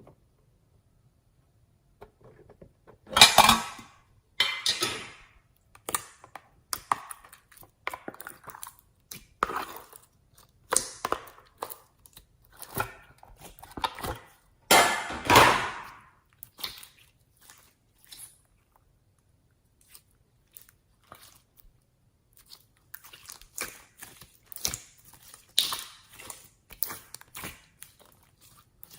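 Slime being worked by hand: irregular bursts of wet, sticky squishing and crackling, loudest twice, at about three seconds and about fifteen seconds.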